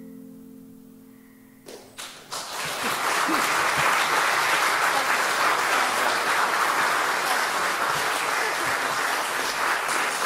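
The final chord on acoustic guitar and ukulele rings out and fades away; about two seconds in, the audience breaks into applause that carries on at a steady level.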